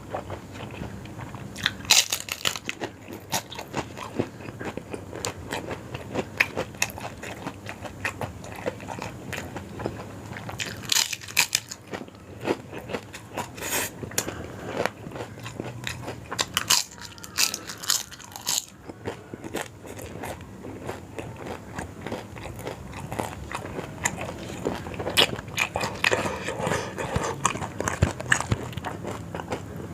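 Close-up eating of yong tau foo: chewing and biting, with several clusters of crisp, crunchy bites.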